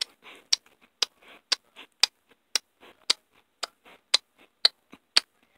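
Steady ticking: a sharp click about twice a second, each followed half-way by a fainter, softer sound.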